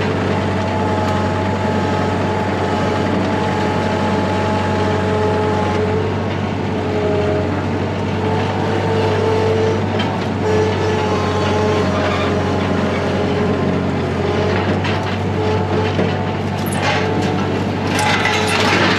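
A steady mechanical drone like an engine or motor running, with a few faint steady tones above it. There are several sharp knocks near the end.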